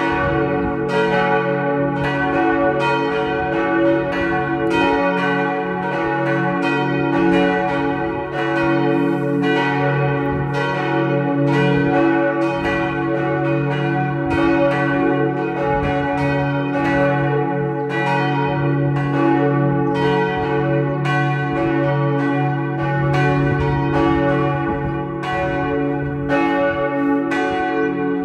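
Three swinging church bells cast by Otto in 1964, tuned cis, fis and ais', ringing together in a steady peal. Their strokes follow each other in an even, overlapping stream, each ringing on into the next over a sustained hum.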